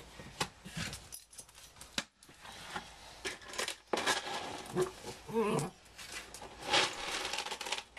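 Small terrier making short breathy snuffs and snorts while waiting for food, with a brief wavering whine about five seconds in.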